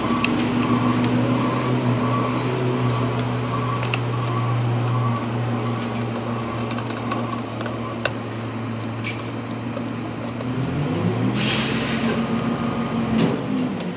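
Garbage truck engine running at a steady low hum, revving up about eleven seconds in, with a short hiss as it rises. Light clicks of small plastic parts being handled sound through the middle.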